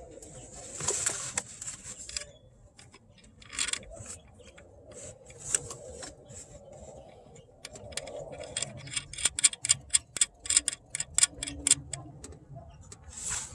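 Hand tools on an engine mount: a few scattered metallic clicks and clinks, then in the second half a run of quick, even clicking from a ratchet wrench driving in the mount bolts.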